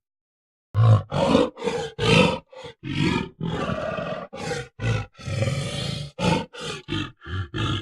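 Gorilla vocalising: a rapid string of short roaring calls, about three a second, broken by two longer held roars in the middle, starting just under a second in.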